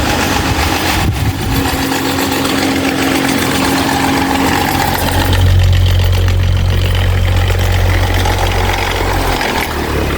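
26-inch Mahita stand fan running with a loud motor hum and air noise. The low hum grows stronger about halfway through and eases near the end.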